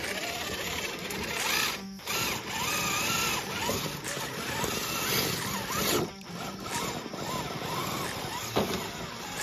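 Small RC rock crawler's electric motor and gear drivetrain whining, the pitch rising and falling as it works its way over rocks. The whine breaks off briefly about two and six seconds in.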